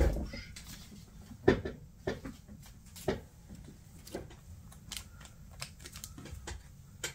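Irregular clicks, taps and light rustles of trading cards being handled and slid into a plastic card sleeve.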